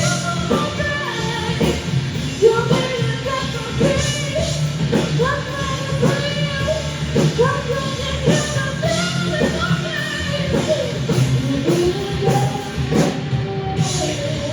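Live rock band playing a song: a singer's melody over a steady drum beat and bass.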